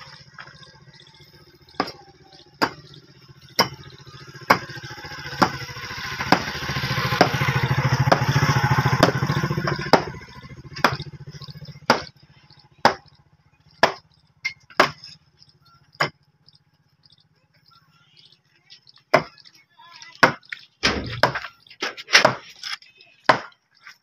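Hand tool blows striking masonry, sharp single knocks about one a second, then after a pause a quicker, irregular run of blows near the end. A louder noise swells and fades in the middle.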